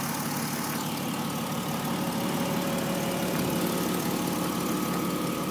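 2006 Jeep Wrangler's six-cylinder engine idling steadily, heard close from above the open engine bay, with a thin steady whine over the hum.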